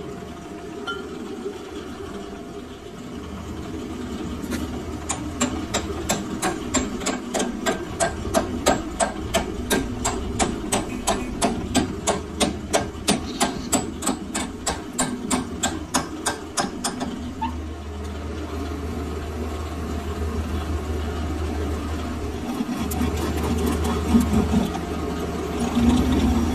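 Steel hammer tapping a short workpiece into a lathe's three-jaw chuck, a long even run of sharp taps about three a second. The taps stop and the lathe's motor then runs with a steady low hum as the chuck spins.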